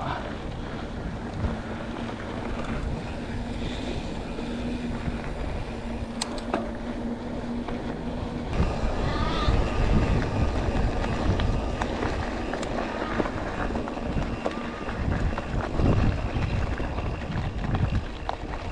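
Canyon mountain bike ridden along a dirt singletrack, heard through a GoPro: wind buffeting the microphone, tyres rolling and the bike rattling over bumps, with scattered knocks. A steady hum runs through the first half and cuts off suddenly about halfway.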